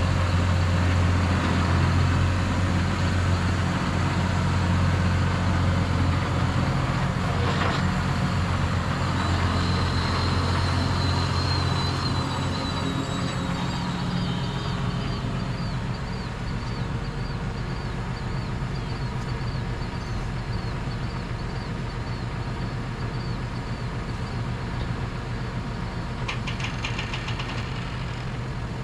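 Farm tractor's diesel engine running steadily, a low drone heard from inside the cab. It eases slightly about halfway through, while a faint high warble comes and goes above it.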